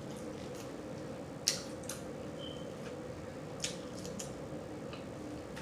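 Mouth smacking while chewing food: a handful of short sharp smacks, the loudest about a second and a half in, over a steady low hum.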